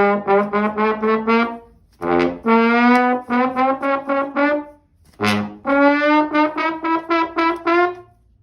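Brass fanfare sound effect: a trumpet-like tune of short, rapidly repeated notes in three phrases, the pitch stepping upward from phrase to phrase.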